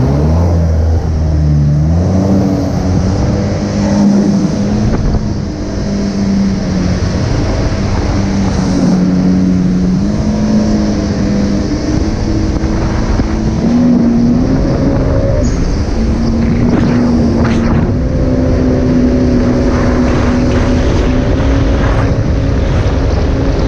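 2019 Yamaha GP1800R personal watercraft with a Riva Racing Stage 1 kit, its supercharged 1.8-litre four-cylinder engine running hard at speed. The engine note climbs in pitch over the first couple of seconds, then holds steady with small rises, over a rush of wind and water.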